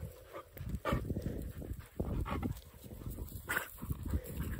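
Podenco hunting dogs giving a few short, sharp yelps spaced out over a few seconds while hunting.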